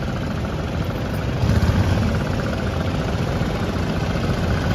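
Steady low rumble of a moving river motorboat, with wind buffeting the microphone; it grows louder about a second and a half in.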